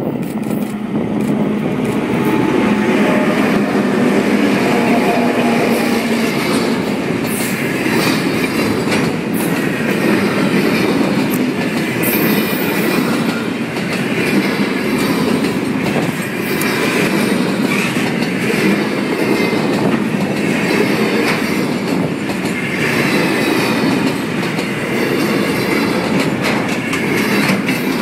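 Diesel-hauled container freight train passing close by: the locomotives' engines hum for the first few seconds, then loaded container flat wagons roll past with a steady rumble and a continuous clickety-clack of steel wheels over the rail.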